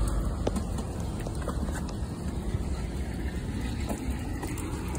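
High-pressure drain-jetting machine's engine running steadily: a low, even drone.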